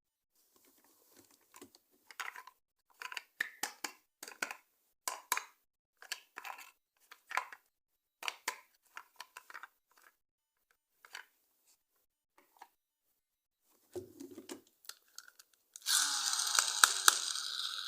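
Plastic toy packaging and parts being handled: a string of separate short crinkles and clicks, then a louder, longer rasping sound near the end.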